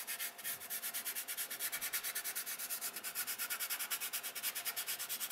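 Fingertips rubbing dry pastel back and forth on sandpaper, blending the colours: a rapid, even, scratchy rubbing of roughly six strokes a second.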